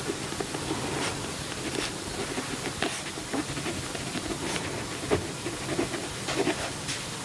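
Pen writing on journal paper: short, irregular scratching strokes and light taps over a steady hiss.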